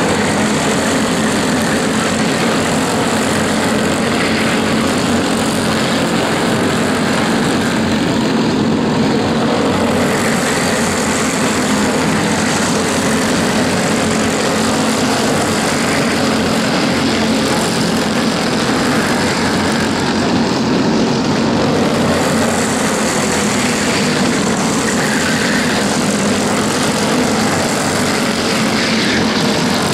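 Racing go-kart engines running steadily at speed.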